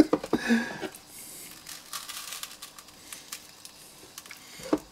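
Hands working dry spice rub into raw chicken drumsticks over a plastic bowl: faint, scattered rustling and squishing with small clicks.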